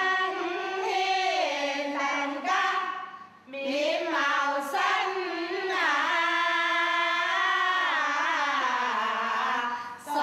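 Women singing a traditional Tanka folk tune set to new lyrics, in long held notes with a short pause for breath about three seconds in.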